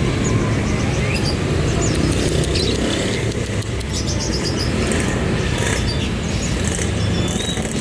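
Many caged small birds chirping and twittering in short high calls, with bursts of wing fluttering, over a steady low traffic rumble.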